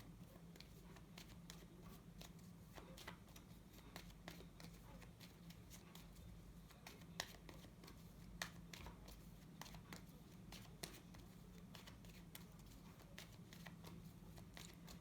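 Near silence: faint, scattered clicks and rustles of tarot cards being handled and laid out, over a steady low hum.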